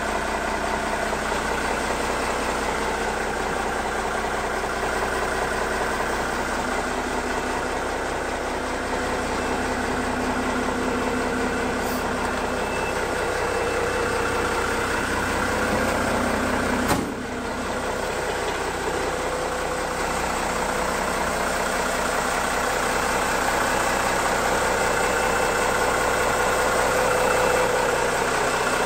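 Diesel engine of an M931A2 military 6x6 truck tractor, a Cummins 6CTA8.3 turbo-diesel, idling steadily.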